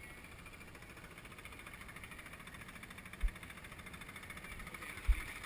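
Small outboard motor on an inflatable dinghy running steadily, with a fine rapid pulsing. Two dull thumps come about three and five seconds in.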